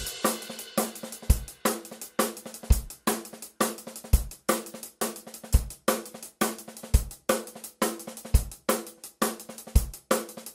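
Intro music built on a steady drum-kit beat: a kick drum about every second and a half, with snare and hi-hat hits between.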